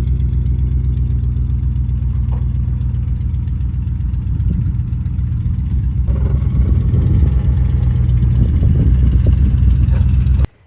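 Car engine idling steadily. About six seconds in the sound grows fuller and slightly louder, and it cuts off abruptly near the end.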